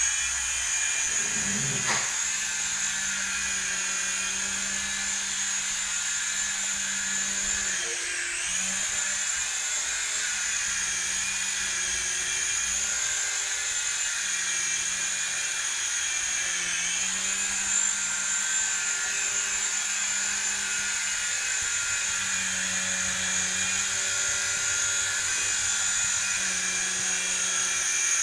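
Falcon T-995 two-channel RC helicopter running: its small electric motors give a steady high-pitched whine over a lower rotor hum. The pitch dips briefly twice, as the throttle is eased and brought back up.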